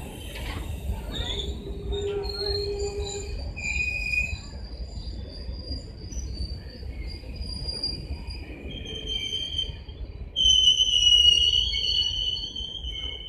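Passenger train coaches rolling past: a low rumble under several high-pitched wheel squeals that come and go and shift in pitch, loudest about ten seconds in.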